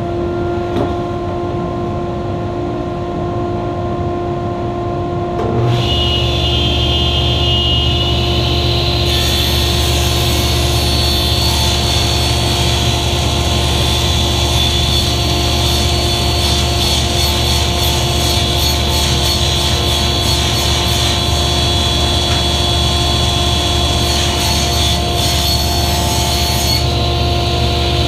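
Table saw motor running at full speed with a steady whine. About six seconds in, a deeper steady hum joins. From about nine seconds the blade rips a plywood sheet, adding a harsh, hissing cutting noise that stops about a second before the end.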